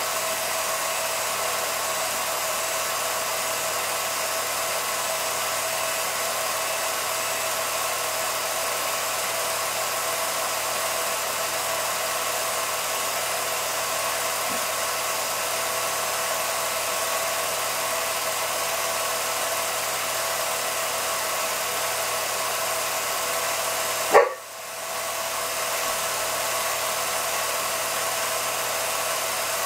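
Steady motor whir of a film projector running an 8mm reel, an even mechanical hum with a light hiss. About two-thirds of the way through there is one sharp loud click, after which the whir drops for a moment and builds back up over about a second.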